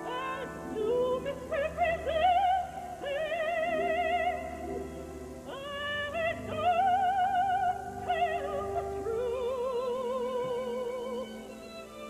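Operatic soprano singing an aria with a wide vibrato on long held notes, over sustained accompanying chords. The voice phrases break briefly about five and a half seconds in before rising again.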